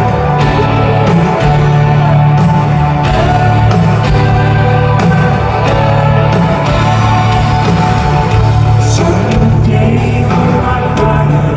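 A live rock band playing a song with guitars, drums and lead singing, heard from far back in a large arena crowd.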